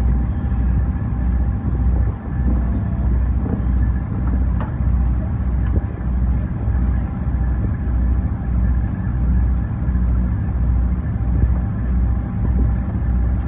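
An engine running steadily, with a low throb that pulses evenly about one and a half times a second.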